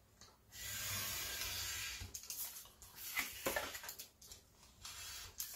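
Pen-style craft knife blade cutting through paper on a glass plate. One long cutting stroke starts about half a second in, followed by several shorter strokes.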